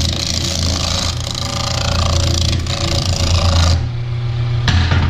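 Half-horsepower Harbor Freight wood lathe running, with a handheld turning tool cutting into a spinning 4x4 block: a steady hiss of shavings over the motor's hum. The cutting stops a little before four seconds in, and there is one more brief cut near the end.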